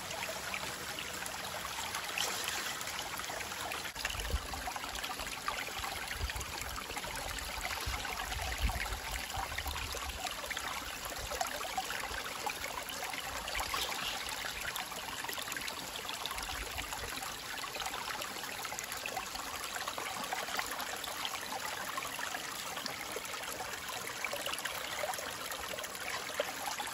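Shallow stream water running steadily through a small stainless-steel gold sluice box and over the rocks around it, a continuous trickling wash. A low rumble comes and goes between about four and ten seconds in.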